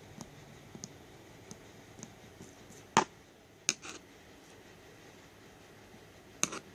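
Homemade slime being squeezed and poked, giving small sticky clicks and pops. There are a few louder snaps: one about three seconds in, two just after three and a half seconds, and one near the end.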